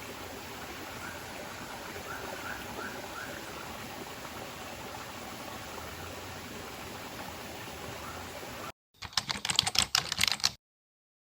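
Steady rushing of a forest stream, with a few faint rising chirps. It cuts off abruptly and is followed by about a second and a half of loud, rapid clicking, like keyboard typing.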